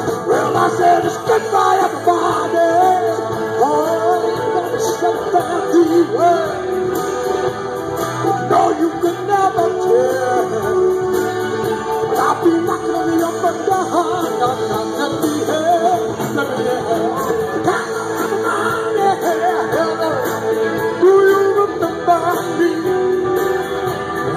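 Live rock band playing: a man sings over electric guitars and drums.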